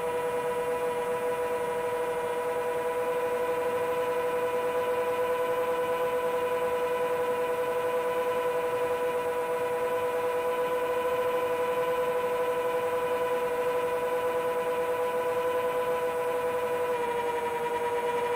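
Motors and propellers of a 7-inch long-range FPV quadcopter whining steadily at cruise throttle, with the pitch stepping slightly lower near the end.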